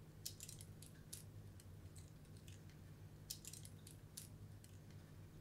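Near silence: room tone with a faint steady low hum and a few faint, scattered clicks.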